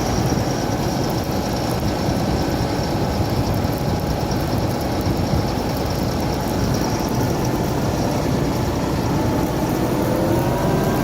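Tractor engine, likely the Fendt 724, running steadily under load while pulling a four-furrow plough through the ground, with a faint whine above it; its note rises slightly near the end.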